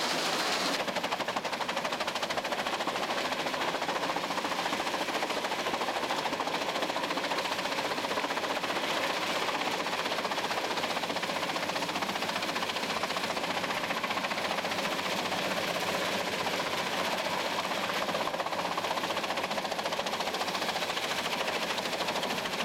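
Gandini Chipper Energy 50-75 drum chipper running and chipping branches, a steady, dense mechanical rattle with wood chips blown out through its discharge spout.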